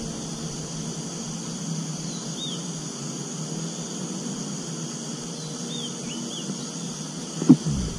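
Steady chorus of insects buzzing, with a few short high bird chirps about two seconds in and around six seconds. A single sharp knock near the end.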